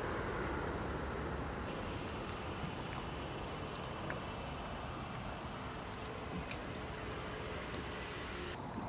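Steady high-pitched chorus of insects that starts abruptly about two seconds in and stops suddenly near the end, over a low steady rumble.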